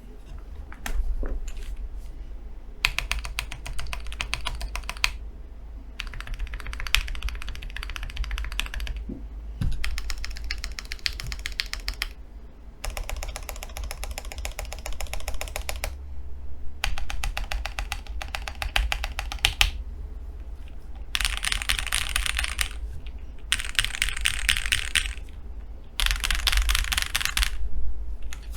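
Typing sound test on a FEKER Alice 80 mechanical keyboard with JWick Black V2 linear switches, Everglide stabilizers and a PE foam mod, its internal silicone dampening removed. Bursts of rapid key clacks, each a few seconds long with short pauses between, play over a low steady hum.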